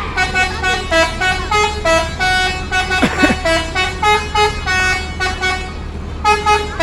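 Bus telolet horn, a multi-tone air horn, playing a quick melody of short pitched notes in rapid succession over a steady low engine hum.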